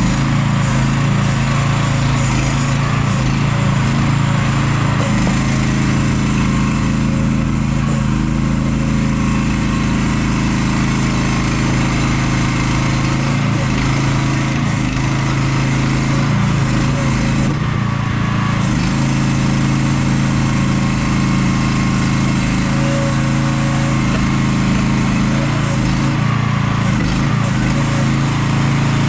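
Mini excavator's small engine running steadily, with brief dips in pitch now and then as it takes load.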